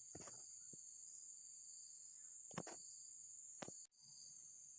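Steady, high-pitched insect chorus of crickets or cicadas, with three short faint clicks; the sound cuts out for a moment near the end.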